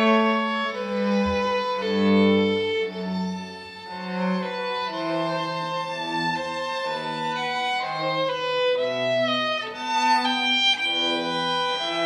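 A string trio of violins and a cello playing a slow piece in held, bowed notes, the cello sustaining a low line under the violins' melody.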